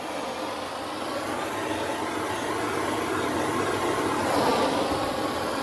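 Handheld propane torch burning with a steady hiss.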